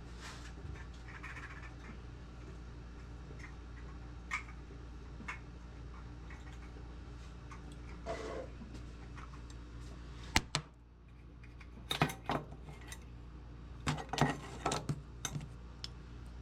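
Scattered clinks and knocks of an old metal lantern being handled and worked on, a few single taps at first, then quick clusters of louder clanks in the second half, over a steady low hum.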